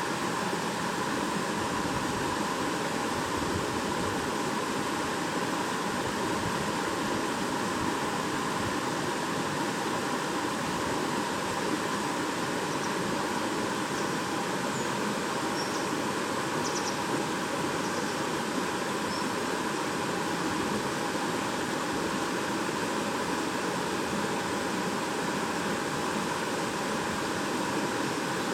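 A shallow stream babbling: water running steadily over stones, without a break.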